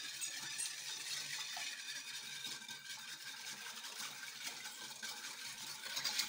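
Wire whisk beating milk with caster sugar and salt in a bowl: a steady liquid swishing as the sugar is stirred in to dissolve.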